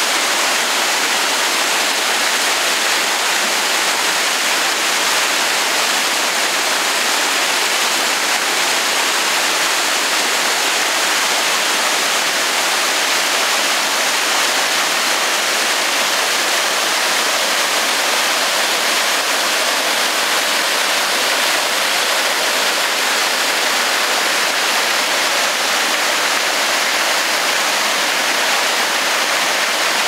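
Small waterfall pouring in two falls off a flat rock ledge into a rocky stream: a steady, unbroken rush of falling and splashing water.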